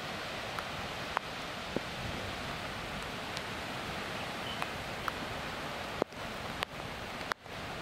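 Steady hiss of heavy rain and floodwater streaming across a road, with scattered sharp ticks of drops. The sound cuts out briefly twice near the end.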